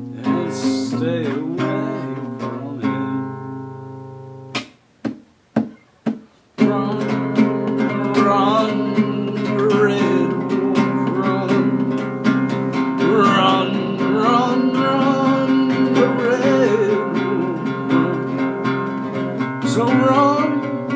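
Acoustic guitar strummed and fingered with a man singing over it. About four seconds in the guitar dies down to a few single plucked notes, then the strumming comes back strongly at about six and a half seconds and the singing resumes.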